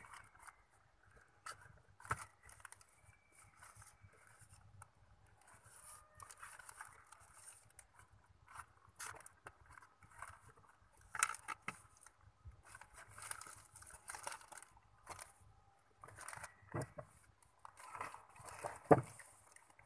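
Cats moving about in a cardboard box, rustling the plastic bag and paper packets under them, with scattered scratchy clicks and a louder thump near the end.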